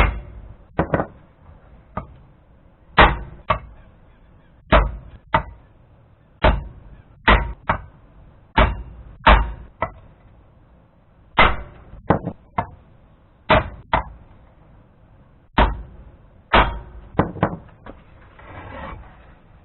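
Sledgehammer blows driving the lug studs out of a Dana 44 front wheel hub: about two dozen sharp metallic strikes, often in quick pairs or threes, a second or two apart. A brief rustling scrape comes near the end.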